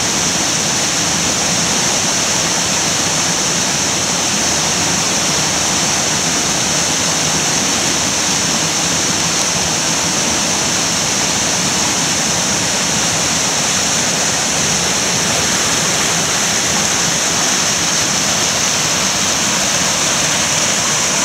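Creek water rushing over rock ledges and small cascades, a steady, unbroken rush.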